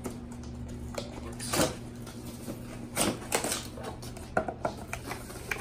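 Cardboard box being opened by hand: the top layer and flaps scraping and rustling in a few irregular bursts, with several short sharp clicks and knocks near the end.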